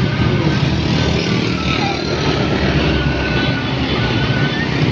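Steady, loud traffic made mostly of small motorcycles passing close by, their engines running in a continuous drone with no pauses.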